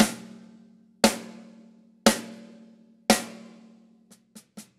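14x6.5-inch Pearl Sensitone snare drum with a coated single-ply Ambassador head, tuned to a medium pitch and muffled with a Snareweight M1, struck alone four times about a second apart, each hit ringing briefly and dying away. Near the end soft quick strokes begin.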